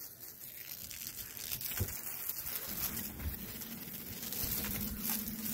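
Water spraying from a handheld garden hose nozzle onto grass, a steady hissing spray.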